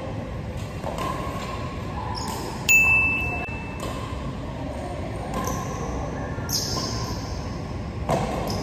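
Badminton play in an indoor hall: rackets hitting the shuttlecock in sharp hits over a steady hall din, the loudest about three seconds in with a high ringing ping after it.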